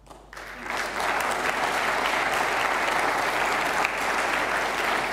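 Audience applauding, rising quickly about half a second in and then holding steady.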